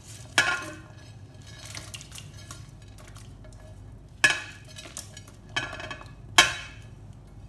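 Dishes and utensils clinking against a cooking pot as ingredients are added: four sharp clinks with a short ring, one about half a second in and three in the last few seconds, with lighter taps between.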